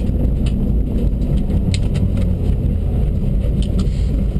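Dacia Duster rally car on the move, heard from inside the cabin: a steady low engine and road rumble, with a few short sharp knocks.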